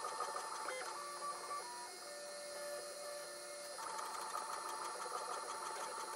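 Flashforge Adventurer 3 3D printer printing, its stepper motors whining in steady tones that jump to a new pitch every second or so as the print head changes moves, over a steady high hiss.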